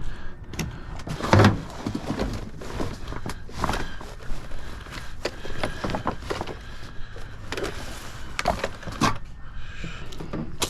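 Irregular knocks and clunks of hard objects being handled, several of them in the first few seconds, the loudest about one and a half seconds in.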